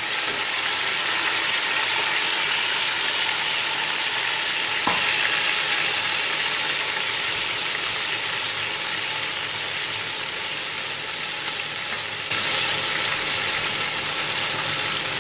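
Ginger, garlic and coriander paste frying in hot oil, a steady sizzle that gets a little louder about twelve seconds in.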